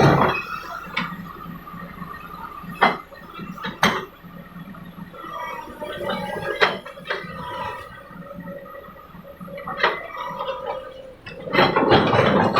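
Komatsu excavator running with a wavering whine, struck through by several sharp metallic knocks, and a loud rush of noise near the end.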